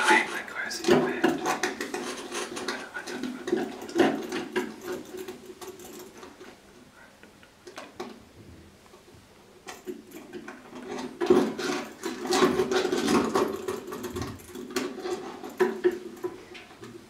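Experimental noise performance: irregular scraping, rubbing and clicking of objects, likely on a prepared zither. It comes in two louder stretches with a quieter gap in the middle.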